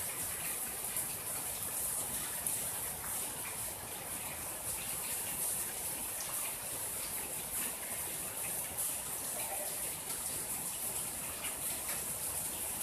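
Steady rain falling on leaves and the ground: an even, unbroken hiss with a few faint drop ticks.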